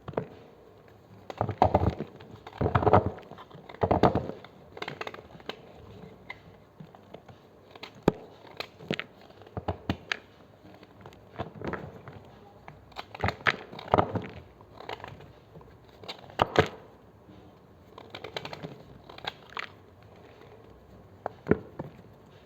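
Knife cutting and crushing blocks of gym chalk: irregular crisp crunches and sharp cracks, with the loudest crunches in the first few seconds.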